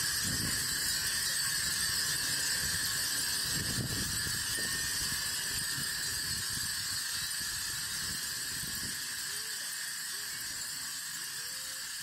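A mass of glass wind chimes ringing together in the breeze: a dense, steady high-pitched tinkling that eases off a little toward the end, over a low rumble that dies away about three-quarters of the way through.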